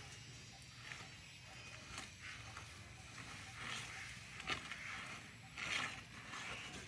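Faint background noise: a low steady hum with scattered brief rustles and a sharp click about four and a half seconds in.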